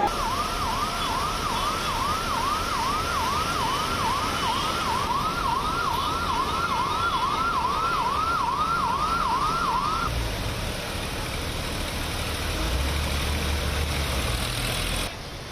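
An emergency vehicle siren in a fast yelp pattern, its pitch sweeping up and down about two and a half times a second over steady background noise. It stops about ten seconds in, leaving a low engine rumble.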